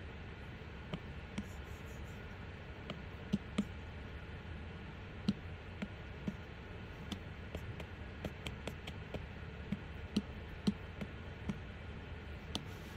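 Light, irregular taps of an Apple Pencil tip on an iPad's glass screen, over a steady low room hum.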